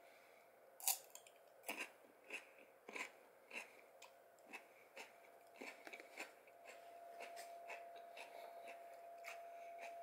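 Crisp crunching of raw cucumber being bitten and chewed: a sharp crunch about a second in, then a crunch roughly every half second or so that stops about six seconds in.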